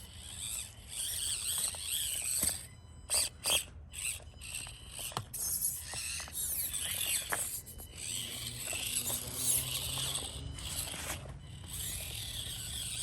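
Axial SCX24 micro RC crawler's small electric motor and gearbox whining high and thin, starting and stopping as it crawls over the course, with a couple of sharp knocks about three seconds in as it bumps over obstacles.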